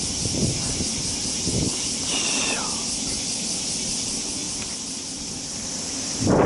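Steady high-pitched buzz of summer insects such as cicadas, with a low wind rumble on the microphone. A short falling chirp about two seconds in.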